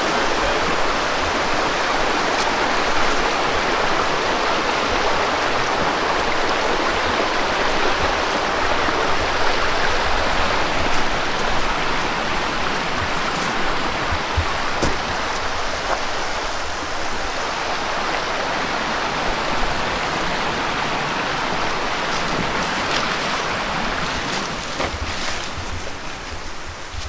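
Mountain creek rushing over rocks: a steady hiss of running water that eases a little near the end.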